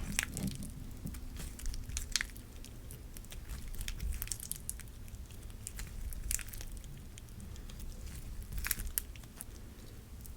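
Clear slime being squished and pressed by hands, with irregular sharp sticky pops and clicks.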